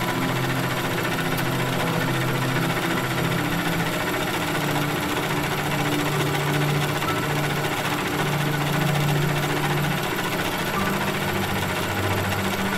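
WEISS VM32L milling machine's spindle running as a drill bores into a rusty metal disc, a steady mechanical whir. Its low hum shifts in pitch a few times.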